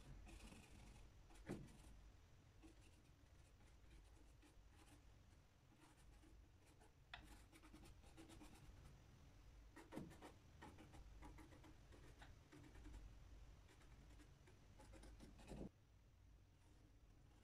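Faint scratching and rubbing of a paintbrush working oil paint onto a painting panel, with four light knocks spread through.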